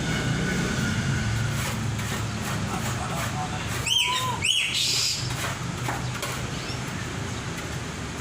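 A bird gives two short, sharp calls about halfway through, with a brief whistled note just before them, over a steady low hum.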